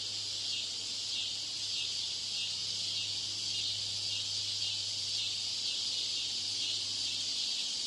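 Steady high-pitched hiss with a low hum beneath it. This is background noise laid over the test audio to imitate a poor exam-room broadcast system. The hum stops just before the end.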